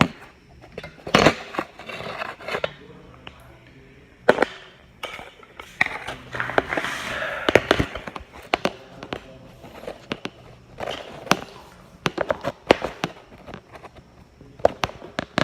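Irregular sharp knocks and clatters, several of them loud, with stretches of muffled noise between.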